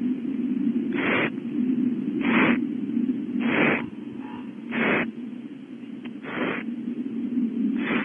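Barn owl owlet giving its hissing begging call, the rasping 'snore' nestlings use to ask for food. Six short hisses come about once every second and a quarter over a steady low hum.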